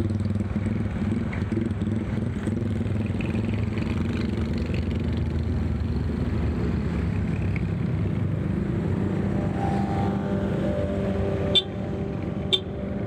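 Yamaha scooter's engine running under way in city traffic, with wind and road noise. Near the end it slows and the engine settles to a steady idle note, with two sharp clicks about a second apart.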